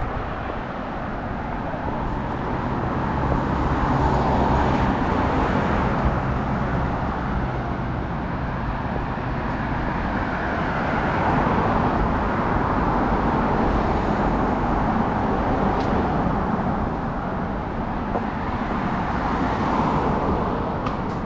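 Road traffic on a city street: cars driving past one after another, their tyre and engine noise swelling and fading, loudest about four seconds in, again around eleven to fifteen seconds, and near the end. A low engine hum underlies the first several seconds.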